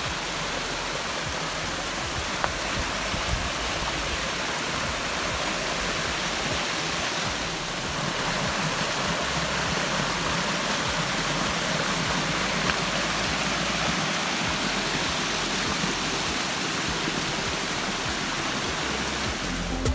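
Small brook waterfall cascading over rocks: a steady rushing of water.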